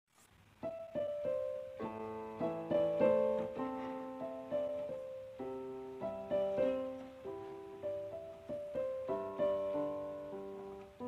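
Background piano music: chords and melody notes struck about once or twice a second, each ringing out and fading, starting about half a second in.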